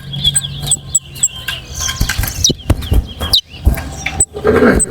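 Caged towa-towa seed finches singing in quick short chirping notes, mixed with scattered sharp clicks and knocks.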